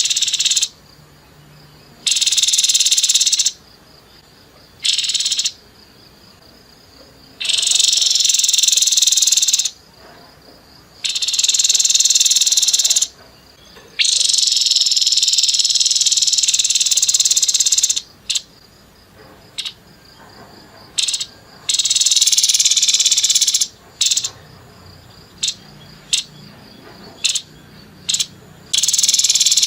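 Grey-headed babbler (tepus kepala abu-abu) singing its harsh, rapid-fire song in bursts of one to four seconds with short pauses between them. Over the last third the bursts break up into several brief chirps.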